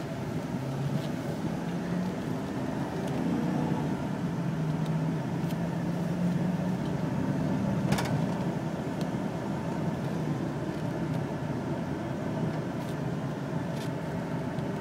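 Cab noise of a 2003 Chevrolet Avalanche Z71 driving on rough pavement: steady road and tyre noise over the 5.3-litre V8's low hum, with a few sharp knocks. The driver takes it that something is really loose underneath the truck.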